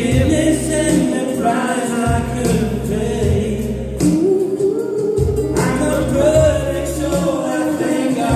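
A Dutch Christian worship song sung by two women and a man into microphones through a PA speaker, their voices together in harmony over an accompaniment with a held bass line.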